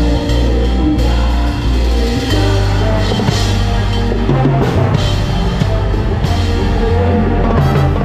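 Salsa band playing live, with timbales and cymbals struck close by over a steady bass line and melody.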